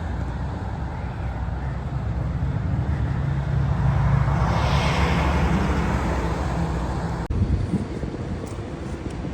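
Road vehicle noise: a steady low rumble with tyre-like hiss, swelling about four to five seconds in, then cutting off abruptly near the end to a quieter, similar rumble.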